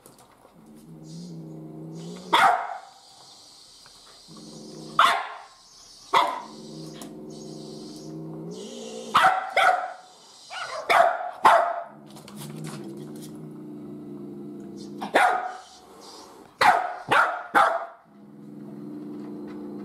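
Kokoni dog barking sharply, about a dozen barks in clusters of one to three. Long, steady, low growls run between the barks.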